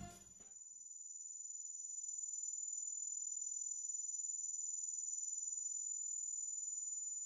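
Steady high-pitched insect trilling, fading in over the first two seconds just after a short stretch of music cuts off.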